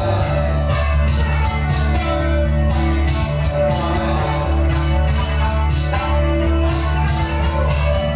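Live rock music: an electric guitar playing over low bass notes and a steady beat of about two strokes a second.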